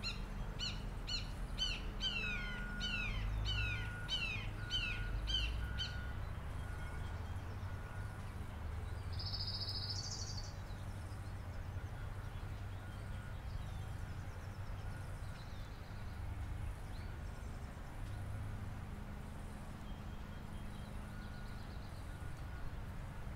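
Birdsong in spring: a bird repeats a quick, falling call about twice a second for the first six seconds, and a brief higher call comes around ten seconds in. A steady low rumble runs underneath.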